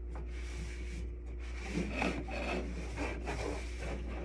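Cloth wiping against the underside of a microwave's range hood, rubbing in quick repeated strokes.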